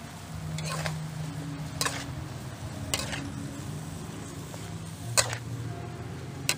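Metal spatula scraping and clanking against a steel wok as strips of cucuzza squash (bottle gourd) and pork are stir-fried, about five sharp scrapes over a steady low hum.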